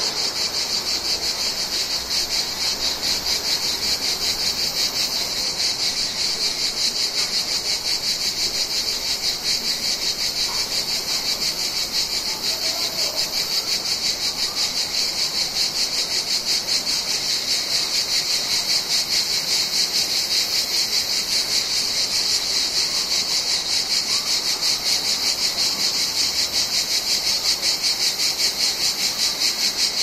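Chorus of cicadas: a steady, high-pitched buzz with a fast pulsing texture.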